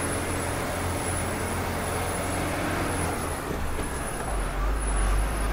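A loaded goods truck's diesel engine running steadily under load on an uphill mountain road, heard from inside the cab with road noise. A deeper low rumble grows stronger about four seconds in.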